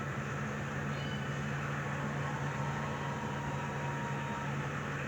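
Steady low mechanical hum with a constant hiss over it and a faint thin tone in the middle; no clear events.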